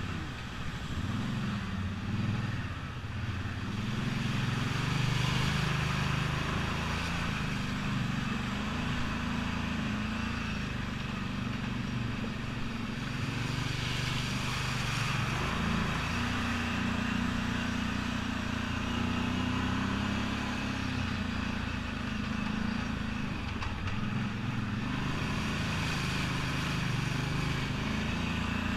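ATV engine running steadily, its pitch rising and falling with the throttle as it works along a rough trail.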